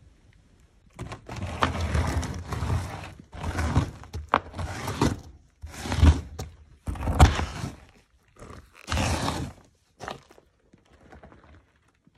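A work boot scraping and scuffing across a gritty dirt-and-gravel cellar floor, grinding the grit with low thuds. There are about six strong scrapes, then a couple of fainter ones near the end.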